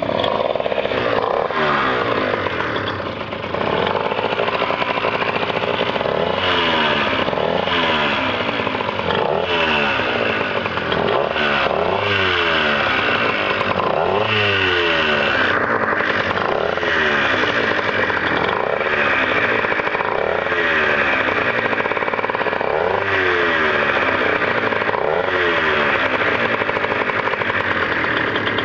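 Yamaha Aerox scooter's two-stroke engine being revved over and over, rising and falling in pitch every second or two. It carries an odd noise that the owner wonders may come from the variator.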